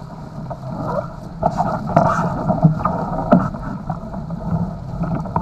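Water rushing and splashing along the hulls of a Nacra 500 sailing catamaran under way, with wind buffeting the microphone. A couple of sharp knocks stand out, about two and three seconds in.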